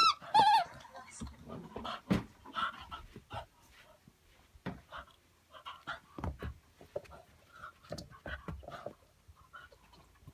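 Shiba Inu panting as it plays with a ball, with scattered knocks and scuffles from the ball and its paws. A short high wavering squeal comes right at the start.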